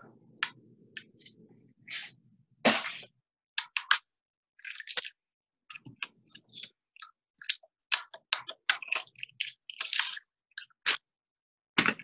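Irregular light clicks and crinkles of small pieces of fusing glass being handled and set down on a glass sheet, coming in quick clusters with short pauses between.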